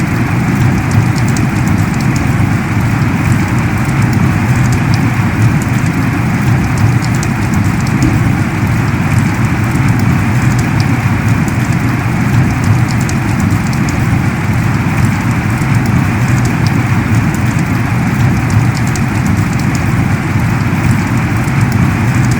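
Heavy rain falling in a steady, dense downpour, with scattered sharp drop ticks over the even rush.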